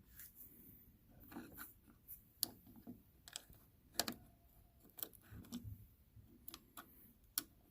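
Faint, irregular clicks and light taps from handling the small parts of a circuit breaker that has been taken apart.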